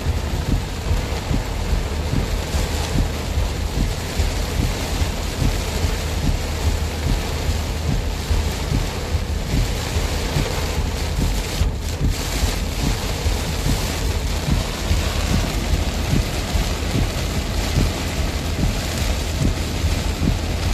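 Heavy rain on a car driving along a highway, heard from inside the cabin: a dense, steady hiss over a constant low rumble.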